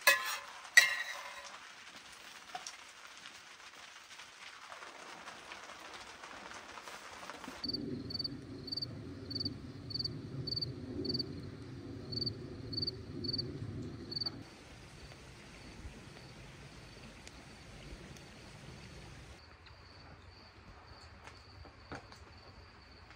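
Two sharp knocks at the start, then an even hiss. From about eight seconds in, a cricket chirps steadily, about twice a second, with a low rushing noise under it for several seconds.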